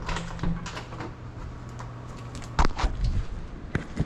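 Clicks, knocks and rustling from a small camera drone being handled by hand, over a steady low hum that cuts off about two and a half seconds in. Several louder thumps follow.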